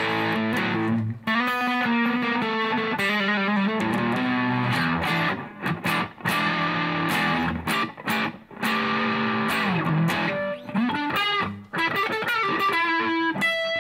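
Stratocaster electric guitar on its neck pickup, played through a JOYO Super Lead plug-in practice amp with treble full up and moderate distortion, into a Fender Mustang III amp. It plays distorted single-note lines and chords, with a few sliding notes.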